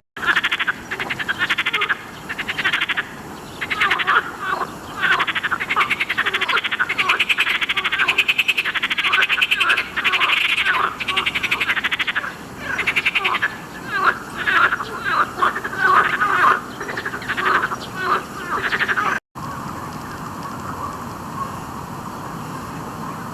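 A chorus of frogs calling in loud, overlapping, rapidly pulsed trills. A little over three quarters of the way through it cuts off suddenly, leaving a steadier, quieter background hum of calling.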